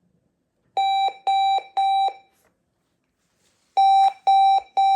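Sonic Bomb alarm clock beeping in test mode: two sets of three loud, short beeps at one steady pitch, about three seconds apart.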